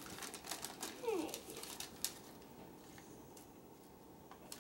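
Paper rustling and crinkling in hand, a gift tag and wrapping being handled, busiest in the first two seconds and fainter after. About a second in comes one short voice-like sound falling in pitch.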